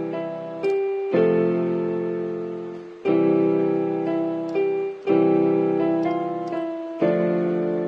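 Background piano music: chords struck about every two seconds, each ringing and fading away, with higher notes changing in between.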